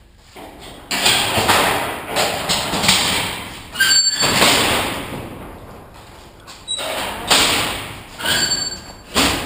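Large corrugated-steel sliding hangar doors being pushed open by hand, rumbling and rattling along their track in several long, super noisy surges. Brief high squeaks come twice from the rollers.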